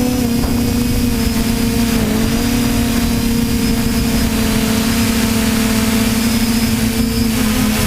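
TBS Discovery quadcopter's electric motors and propellers humming steadily in flight, the pitch wavering slightly with throttle, with a brief dip about two seconds in and another near the end.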